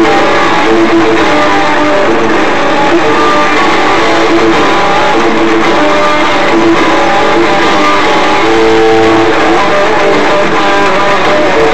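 Guitar music, strummed and plucked, with notes changing at a steady level.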